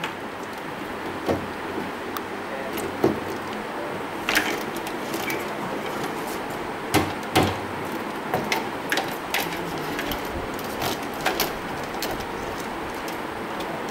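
Irregular short knocks and clicks, a dozen or so, over steady background room noise, the loudest coming about three seconds and seven seconds in.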